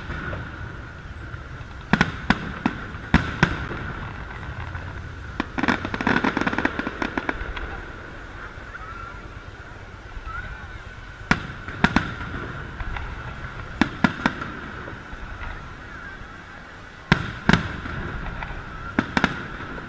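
Aerial firework shells bursting overhead in a series of sharp bangs, often two in quick succession, with a denser stretch of crackling pops around six seconds in.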